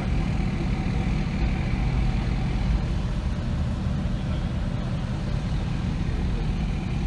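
Steady low rumble of a vehicle driving on the road: engine and road noise with no change in pace.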